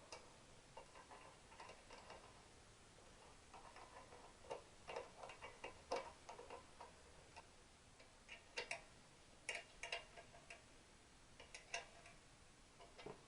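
Faint, irregular metallic clicks and clinks of hand tools at work on the motorcycle, coming in small clusters, with near silence between them.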